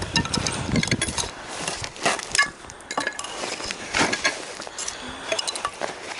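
Irregular sharp clicks and light knocks of small dry wooden kindling splinters being split, snapped and handled.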